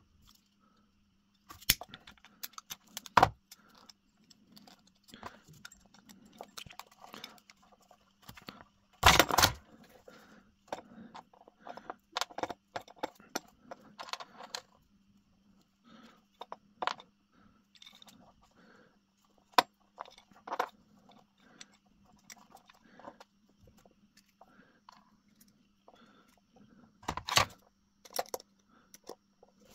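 Small hand tools and lamp parts handled at a workbench: pliers and a small screwdriver clicking and scraping against a lamp fitting and its brass terminal screws, with wire strands rustling. Irregular clicks and knocks throughout, with a few louder clatters, the loudest about nine seconds in.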